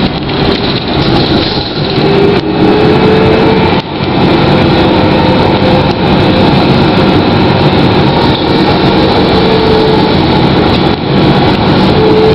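Riding inside a GT6M low-floor tram: steady running noise with the traction motor's whine rising in pitch as the tram picks up speed, about two seconds in and again near the end.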